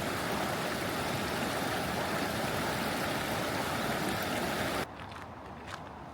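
Steady rush of fast-flowing stream water that cuts off abruptly about five seconds in, followed by faint footsteps on the trail.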